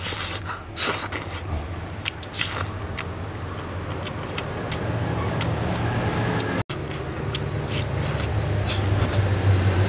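Close-up eating sounds of someone gnawing a braised pig's trotter by hand: wet sucking, biting and lip-smacking clicks as skin and meat are pulled off the bone. A steady low hum runs underneath and grows slightly louder.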